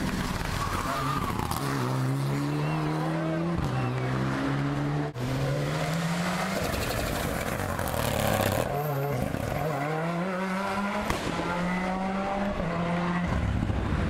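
Turbocharged rally cars at full throttle, first a Mitsubishi Lancer Evolution and then a Ford Escort WRC. Each engine note climbs and drops back with every upshift, with an abrupt switch from one car to the other about five seconds in and a single sharp bang near eleven seconds.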